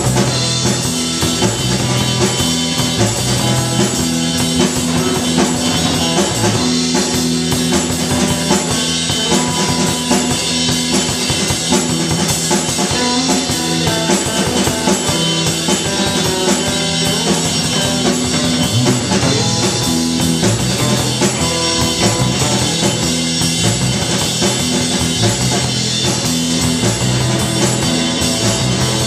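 Live rock band playing loud and steady, with drum kit and electric guitar.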